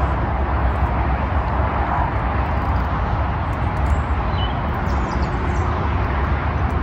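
Steady rumble and hiss of motorway traffic running past the lake, with a faint bird chirp about four seconds in.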